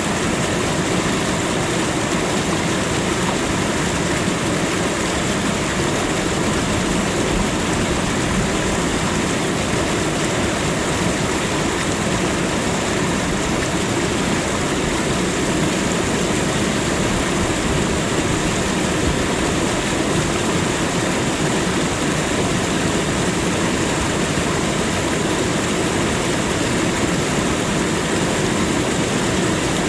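Waterfall: an even rush of falling water, steady in level with no separate splashes or events.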